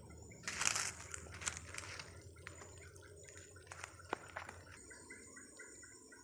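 Footsteps and rustling through dry grass, leaf litter and brush, in irregular crunching bursts, loudest in the first two seconds, over a steady high buzz of insects. Near the end a short, rapid run of chirps.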